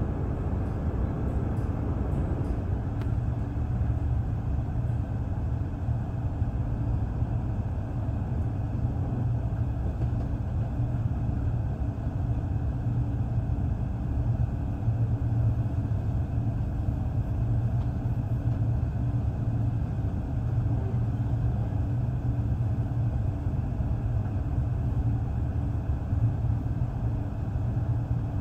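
Passenger train running at a steady pace, a constant low rumble heard from inside the carriage, with a few faint clicks in the first few seconds.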